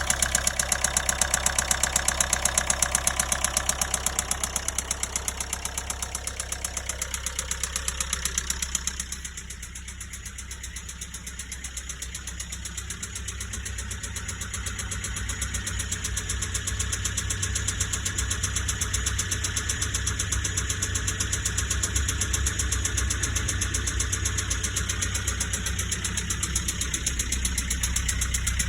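Nissan Qashqai J10 1.5 dCi four-cylinder turbodiesel idling with a horrible, even knock. The owner thinks it sounds more like a top-end fault than a bottom-end one, possibly full engine failure. It gets quieter about nine seconds in, then slowly builds back up.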